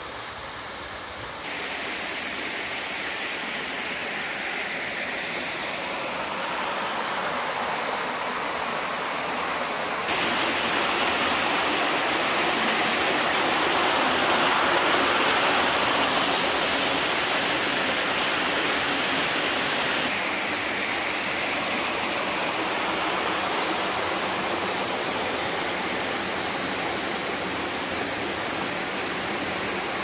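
Waterfall and the water pouring over the rock below it: a steady rush of falling water. It gets louder in steps, loudest from about a third of the way in to about two-thirds, then eases back.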